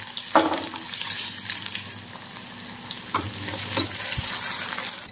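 Chopped onion sizzling as it fries in hot oil in a kadhai, with a spatula knocking and scraping against the pan a few times as it is stirred.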